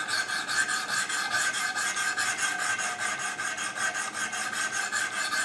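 400-grit diamond stones of a Wicked Edge guided sharpener scraped along an S30V steel knife blade in quick, even strokes, about four or five a second, with a steady ringing tone beneath. This is reprofiling a factory edge to 20 degrees, filing one side until a burr is raised.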